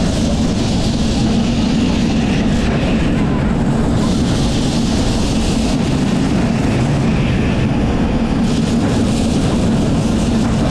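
1906 double-decker electric tram running along its track, a steady rumble and hum heard from its roof.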